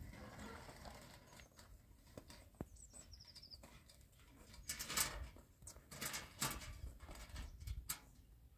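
Knocks and rattles on a wooden hut door, scattered and uneven, the loudest about five and six and a half seconds in, with a low wind rumble underneath.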